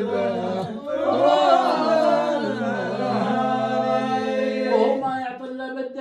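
A man chanting a line of Bedouin Arabic poetry in long, drawn-out held notes, the pitch gliding up and down about a second in, giving way to speaking near the end.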